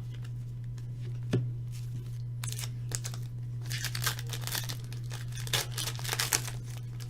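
Trading card pack wrappers crinkling and tearing as packs are torn open, in dense bursts from about two and a half seconds in, over a steady low hum.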